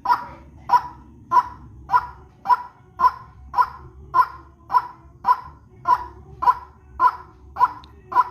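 White-breasted waterhen (ruak-ruak) calling: short, harsh, evenly repeated notes, a little under two a second, as used on a bird-lure call track.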